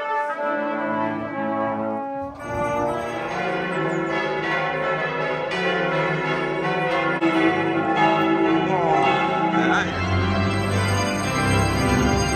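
Several church bells ringing together in a full festive peal. Brass band music gives way to the bells about two seconds in.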